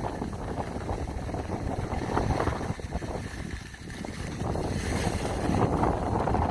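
Wind buffeting a phone microphone while skiing downhill, a rough, gusting rumble, with skis scraping over packed snow beneath it.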